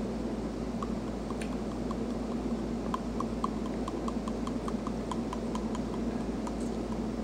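Steady room hum with a run of light, evenly spaced ticks, about four a second, starting about a second in and stopping near the end.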